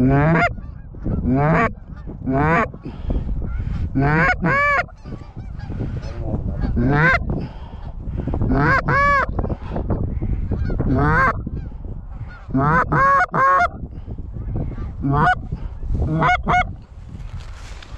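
Canada goose honks: a series of about a dozen loud, separate honks, some a low note breaking up to a higher one, coming every one to two seconds.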